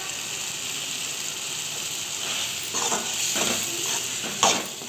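Thick bitter gourd thokku sizzling in a metal pan while a perforated spatula stirs it. The spatula scrapes the pan a few times in the second half, with the sharpest knock near the end.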